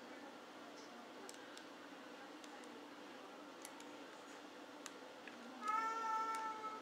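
Faint, scattered metallic ticks of a lock pick and tension wrench working the pins of an ABUS 85/40 padlock. Near the end a cat meows once, loudly, for about a second.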